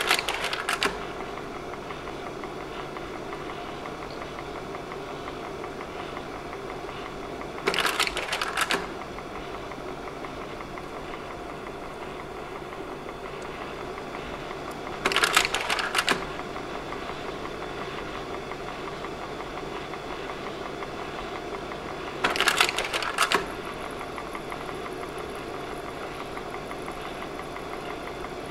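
Slide projector running with a steady fan hum, its slide-change mechanism clattering for about a second every seven to eight seconds, four times in all.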